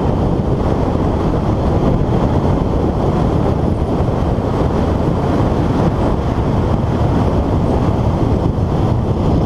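Steady wind noise buffeting a helmet-mounted action camera at road speed on a Honda Hornet motorcycle, with the bike's inline-four engine running underneath.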